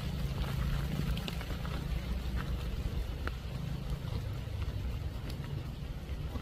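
Pouring rain with a low, steady rumble on the microphone and scattered sharp ticks of drops.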